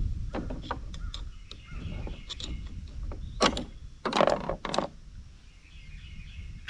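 Metal sockets clicking and clinking as they are pulled off one socket rail and snapped onto another. The loudest clinks come in a cluster about halfway through.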